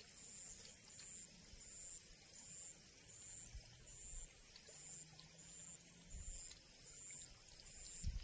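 Insects, crickets by the sound of it, keep up a steady high-pitched trill with a regular pulsing beat.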